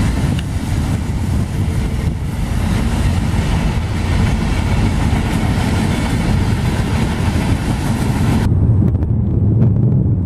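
Freight train cars rolling past, a steady loud rush of steel wheels on rail. About eight and a half seconds in it cuts off abruptly to a more distant train's low rumble with wind on the microphone.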